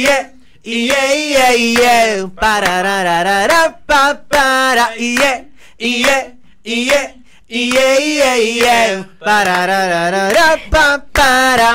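Men of a tropipop band singing live without accompaniment, in short melodic phrases with brief pauses between them.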